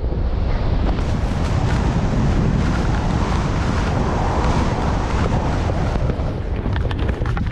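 Heavy wind rumble on the microphone of a skier going fast downhill, over a steady hiss of skis scraping through chopped, tracked snow.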